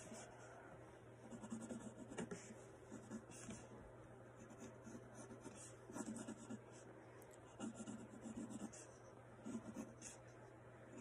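Faint scratching strokes of drawing on paper, in short bursts every second or two, over a steady low hum.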